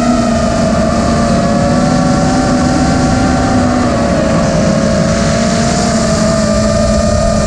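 Brushless motors of a 5-inch FPV racing quadcopter (Xing X2207 2450KV) whining in flight over a steady rush of wind and prop noise. The pitch holds fairly even and dips slightly about halfway through as the throttle eases.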